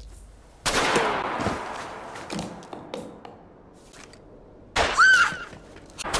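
A loud crash about half a second in, fading over about a second, followed by a few lighter knocks. Near the end comes a short high squeal that rises and falls.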